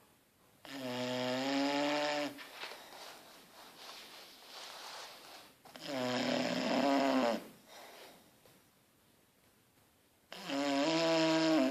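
English bulldog snoring in its sleep: three loud, drawn-out snores about five seconds apart, with faint breathing between them.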